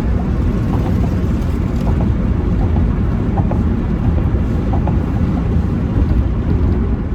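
Steady low rumble of a car moving fast, at about 60 mph, with road and wind noise.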